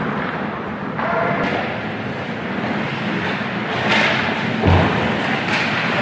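Sounds of ice hockey play on a rink: steady noise with a few sharp knocks about four seconds in and a heavy low thump just before five seconds.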